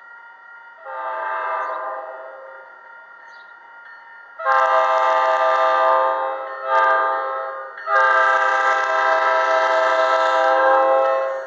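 Express train's multi-tone air horn sounding: a softer blast about a second in, then long loud blasts from about four and a half seconds, broken by a short gap and a brief toot near seven seconds.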